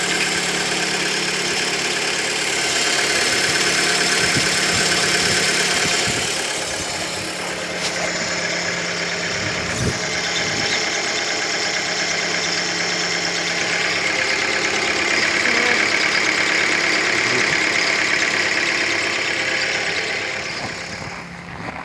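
Fiat Albea engine idling under the open bonnet, with a whistle under the hood that comes through about halfway in.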